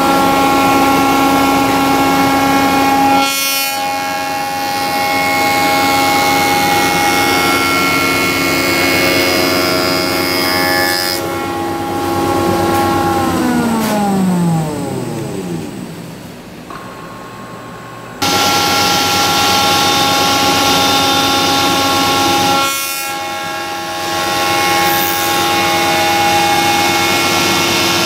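Spindle shaper with a glue joint cutterhead running with a steady whine as boards are fed through the cutter by the power feeder, once about three seconds in and again near the end. Midway the machine is switched off, and its whine falls in pitch as the spindle spins down. A few seconds later it starts up again.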